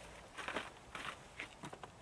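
Faint footsteps on dry twigs, brush and patchy snow: a handful of soft crackles and rustles spread across the two seconds.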